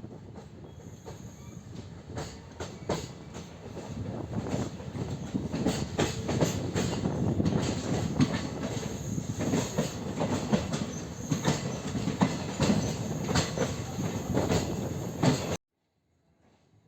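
Passenger train running along the track, heard from on board: a steady rumble with rapid clicks of the wheels over rail joints, growing louder about four seconds in. It cuts off suddenly near the end.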